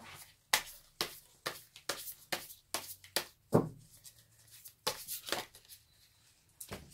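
A deck of tarot cards being shuffled by hand: an irregular run of sharp card taps and slaps, a few a second, with a short pause about four seconds in.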